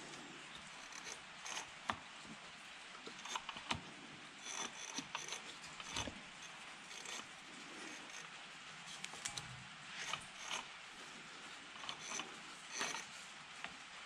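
Scattered small metal clicks and light rattles, with rustling, as gloved hands work the camshaft sprocket and timing chain in the open cylinder head of a Polaris RZR 170 engine.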